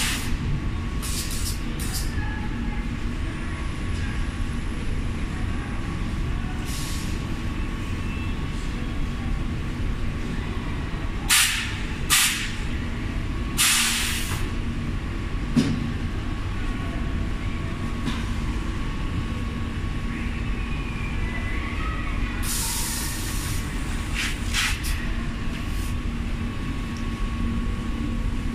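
High-frequency fabric welding press running: a steady low hum with a faint constant whine, broken several times by short hisses of compressed air from its pneumatic press cylinders.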